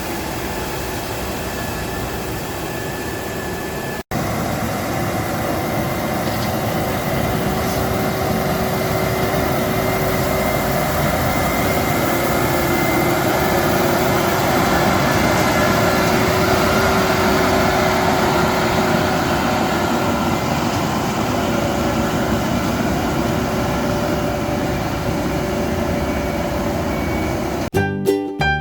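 Heavy road-construction machinery running steadily: an engine drone with a few steady whining tones, broken by a sudden cut about four seconds in. Piano music starts at the very end.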